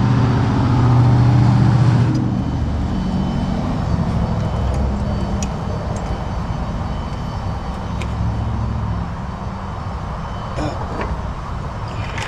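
A motor vehicle engine running, loudest for the first two seconds, then dropping and slowly fading.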